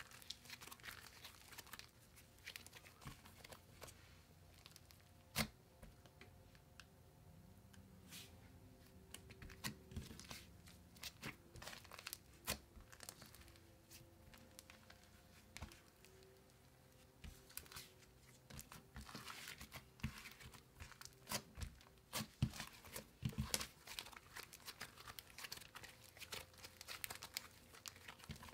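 Thick, soft, spreadable slime being stretched, folded and pressed flat by hand, giving faint, scattered crackles and sticky clicks.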